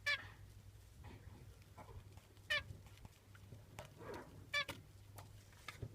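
Zebra finches giving short, nasal, horn-like calls: four loud ones, two of them close together near the end, with fainter softer calls in between.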